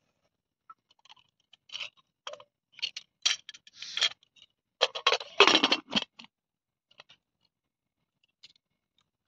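Aluminium pressure cooker clinking and scraping as its lid is fitted and clamped shut, in a run of separate metal clicks that are loudest about five to six seconds in, then a few faint ticks.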